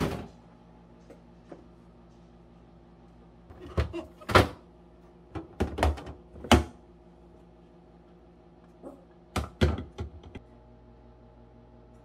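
A refrigerator door thump at the start, then hard plastic food-storage containers knocking and clunking in three short clusters as they are handled and set into the fridge.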